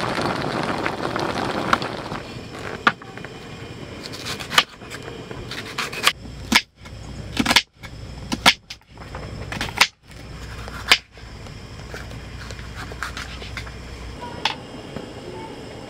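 A pot of kimchi stew simmering with a dense bubbling hiss for about the first two seconds. Then a knife cuts an onion on a wooden cutting board: a run of irregular sharp knocks.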